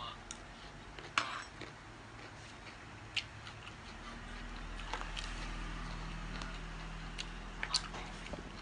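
Close-up chewing and mouth sounds of someone eating a spicy rice-noodle salad from a fork, with a few sharp clicks. A low steady hum comes in about halfway and fades near the end.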